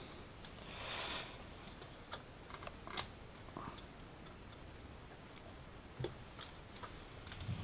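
Faint, scattered small clicks and ticks of hand tools against metal at the back of an alternator, with a short scraping rustle about a second in.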